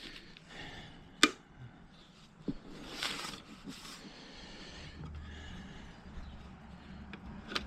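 Microfiber cloth wiping the surface of a boiler component, with two brief swishes midway, and one sharp click of the part being handled about a second in. A low steady hum comes in past the middle.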